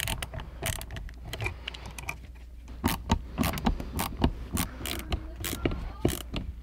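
Hand screwdriver turning the mounting screws of two light switches in an electrical box: a run of irregular small clicks and scrapes, thickest around the middle.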